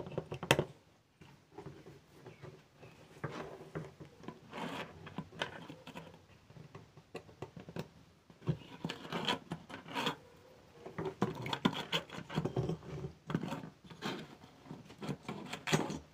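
Irregular rubbing, scraping and light taps as circuit boards, a ribbon cable and test leads are handled and shifted on a wooden tabletop.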